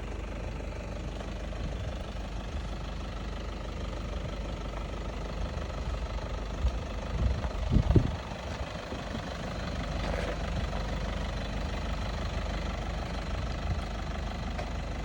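A vehicle's engine running steadily with a low rumble, with a few heavy low thumps about seven to eight seconds in.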